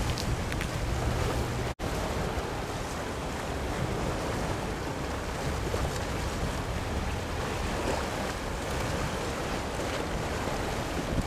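Wind blowing across the microphone over the wash of choppy sea water, a steady rushing noise. A low steady hum runs under it for the first two seconds, and the sound drops out for an instant about two seconds in.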